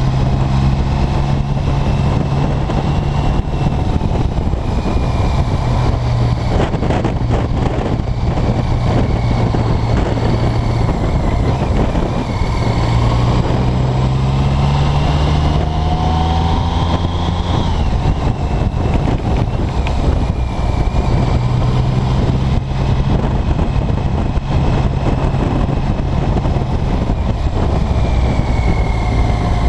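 BMW K75 motorcycle's three-cylinder engine under way, heard from on the bike, its note climbing and falling with the throttle through the bends, with one long climb about halfway through that drops off sharply.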